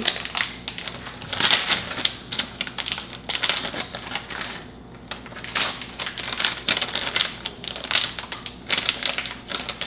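Plastic packets of grated Parmesan crinkling as they are torn open and shaken out over a pan, a run of rapid, irregular crackles that pause briefly now and then.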